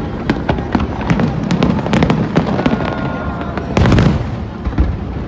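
Fireworks display going off, with a dense run of sharp cracks and pops over a continuous low rumble of bursts. The loudest burst comes just under four seconds in.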